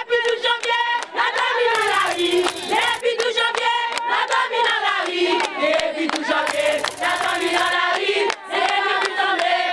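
Crowd of women singing a protest song together, many voices at once.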